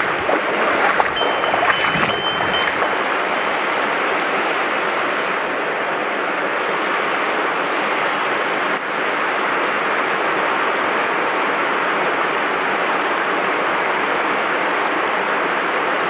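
Shallow mountain stream rushing over rocks in a steady, loud rush of water, with a faint high tone about a second in and a single click near the middle.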